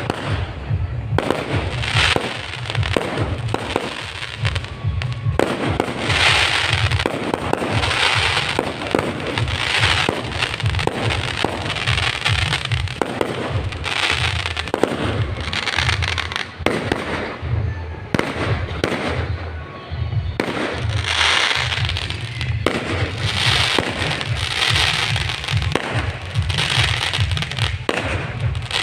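Firecrackers going off in a rapid, unbroken crackle of loud pops, with music underneath.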